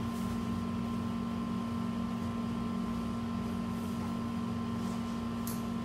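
Steady mechanical hum of a room air conditioner: a constant low drone with a fainter, higher steady whine over an even hiss, and a brief faint click near the end.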